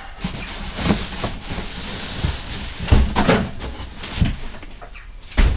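Large cardboard box being handled and turned around, with scraping and rustling of the cardboard and several knocks and thumps against it.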